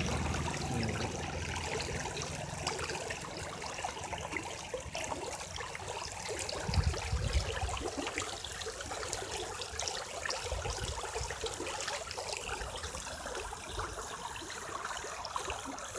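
Water running and trickling along an irrigation channel, a steady rushing sound, with a couple of brief low rumbles partway through.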